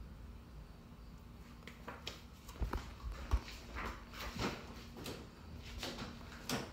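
Footsteps in flip-flops on a garage floor: a light slap or click about every half second to a second, over a faint steady hum.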